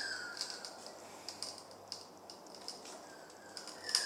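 Scattered light clicks and taps of a cheap mini vice and small metal parts being handled as its clamp is tightened. A short high squeak falling in pitch comes at the start and again near the end.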